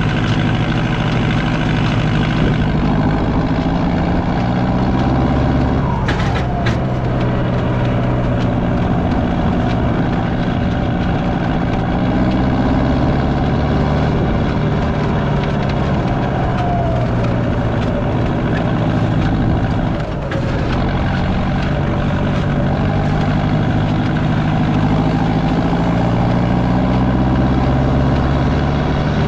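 Fendt 510C tractor's diesel engine working steadily under load while pulling a land roller over grassland. Its note drifts gently up and down, with a short dip about 20 seconds in and a brief rattle of clicks about six seconds in.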